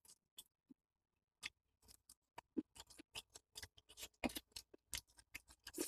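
Faint eating sounds: irregular soft clicks and taps, several a second, as noodles are eaten from a bowl.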